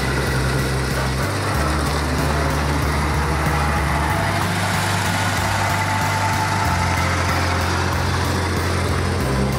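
1942 Ford fire truck's flathead V8 running as the truck pulls away and drives along the road. Background music plays under it, its low notes changing every two to three seconds.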